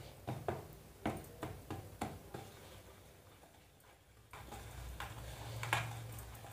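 Small wire whisk clicking against the sides of a plastic bowl as it beats chocolate cake batter, about three light clicks a second, fading out about halfway through. A low steady hum comes in near the end.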